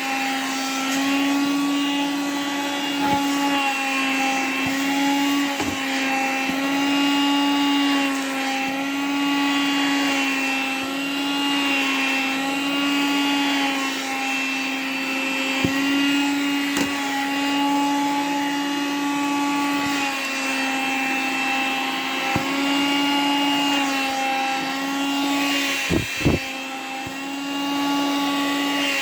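Vacuum cleaner running steadily with its motor pitch wavering slightly as the nozzle is worked over a nylon windbreaker tracksuit, with a few light knocks of the nozzle, two close together near the end.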